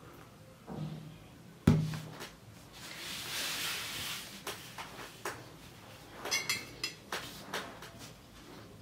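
A ceramic mug set down on a table with one sharp knock about two seconds in, followed later by a few light clinks of a metal fork against a china plate.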